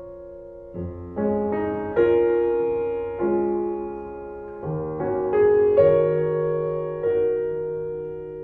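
Slow, gentle solo piano music: chords struck about once a second, each ringing and fading before the next.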